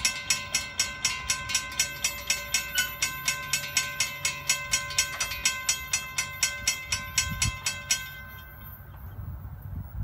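Railroad crossing warning bell ringing in a fast, even series of strikes, about three or four a second, while the crossing gates lower, the warning that a train is approaching. The ringing stops abruptly about eight seconds in, as the gate arms come down, leaving a faint low rumble.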